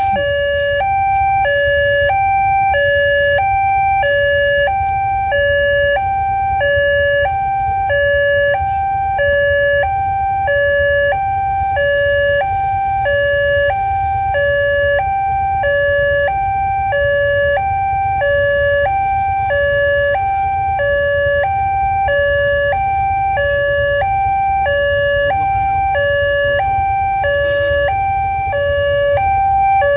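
Railway level-crossing electronic alarm sounding continuously, a loud two-tone signal alternating evenly between a lower and a higher pitch, the warning that a train is approaching and the crossing is closed.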